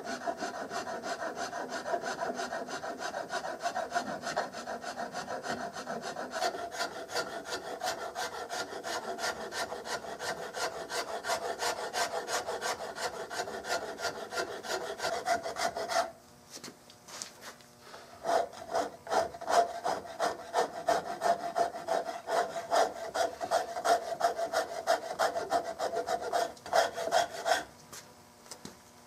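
Hand file rasping across a walnut gunstock's pistol grip in quick, even strokes, with a pause of about two seconds partway through.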